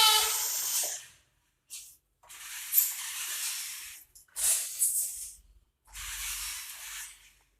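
Radio-controlled truck driven in short stop-start bursts: four runs of hissing noise, each about a second long, cutting off sharply between runs.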